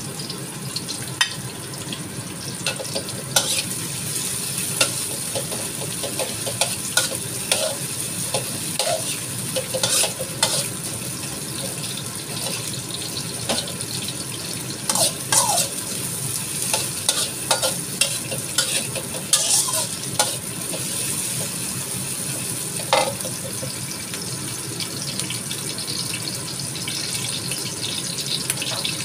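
Sliced onion, garlic and ginger sizzling in oil in a wok, with a steady hiss. A metal spatula scrapes and clacks against the wok in irregular bursts as they are stir-fried.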